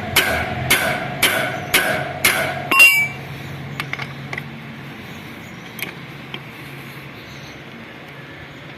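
Hammer tapping a T40 Torx bit into a stripped, worn-out screw head so that it bites for removal: about two ringing metal blows a second, ending about three seconds in with one sharp clink. After that only a faint low hum and a few light clicks.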